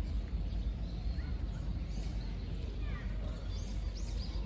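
Steady low outdoor rumble with faint small-bird chirps coming in a few at a time from about a second and a half in.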